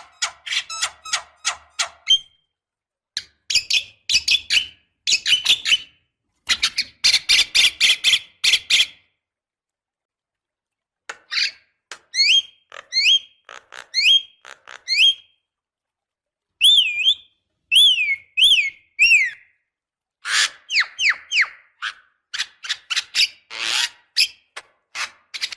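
Javan myna (jalak kebo) singing in separate phrases: fast strings of harsh chattering notes, then a run of clear rising whistles, then several whistles that dip and rise again, and more chatter near the end. The phrases are broken by short, completely silent gaps.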